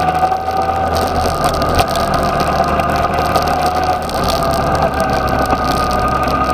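Yamaha XJ6's inline-four engine running at steady revs under way, with a brief dip in level about four seconds in.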